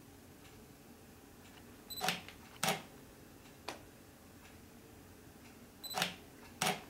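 Nikon DSLR fired twice by remote, in Bulb mode: each time a short high beep, then two sharp clicks about half a second apart as the mirror and shutter open and close.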